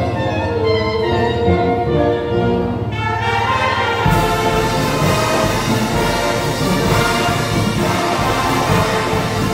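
A brass band playing: held melodic notes over a steady accompaniment, then about four seconds in the full band comes in, fuller and brighter.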